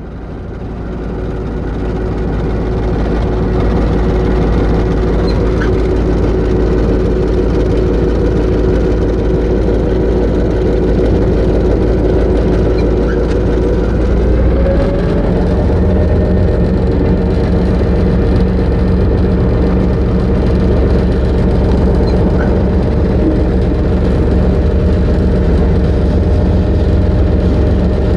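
EMD GR-12 diesel-electric locomotive's two-stroke V12 diesel engine running steadily, heard from inside the cab with the train under way. About halfway through the engine note rises briefly and settles lower and stronger, as the throttle is moved to a new notch.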